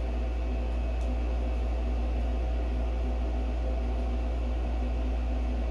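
Steady low droning hum with an even hiss, unchanging throughout: the background noise of a running machine such as room ventilation.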